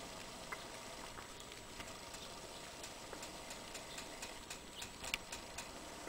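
Faint steady background hiss with scattered light ticks and clicks, several close together about five seconds in.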